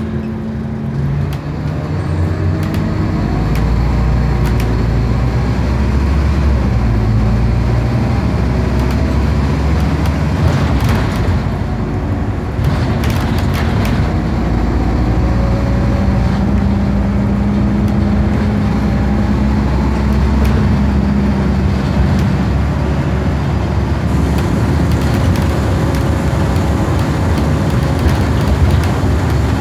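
Sullivan Buses DS51, an LX59-registered single-deck bus, heard from inside the saloon while under way. The engine note rises and drops back several times as it pulls, over a steady low rumble of engine and road noise, with occasional light rattles.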